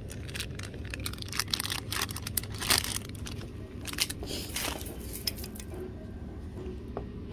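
Clear plastic packaging of a pack of ballpoint pens crinkling and crackling as it is handled, with sharp clicks. The crackling dies down about six seconds in.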